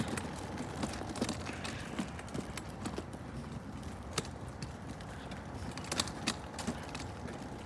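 Irregular sharp clicks and knocks, a few each second, over a steady rustling rumble, made by moving quickly downhill along pavement.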